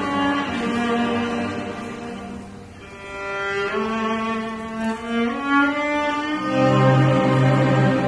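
String orchestra of violins, violas, cellos and double basses playing long held notes. The sound thins and drops in level a little under three seconds in, then swells back. About six seconds in, the low strings come in with a strong sustained low note.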